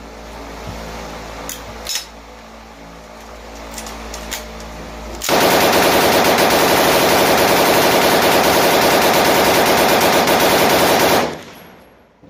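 Belt-fed MG34 machine gun on its tripod mount firing one long burst of about six seconds, a fast, even rattle of shots that starts about five seconds in and stops sharply. Before the burst, a few light clicks and knocks.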